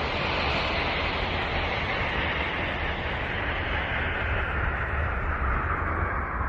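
A 'planet sound' drone: a steady rushing noise over a constant low rumble, its hissing band slowly falling in pitch throughout.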